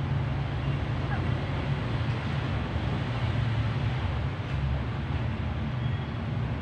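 Steady low rumbling background noise with a hiss over it. A faint, brief high squeak comes about a second in.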